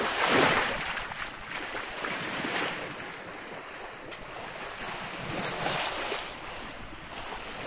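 Water rushing and swishing along the hull of a classic sailing yacht under way on a calm sea, rising and falling in a few surges, with wind buffeting the microphone.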